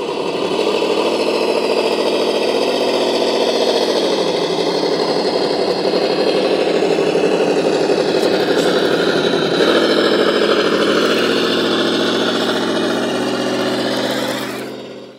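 An engine sound idling steadily, its pitch shifting slightly about two and a half seconds in and again near ten seconds.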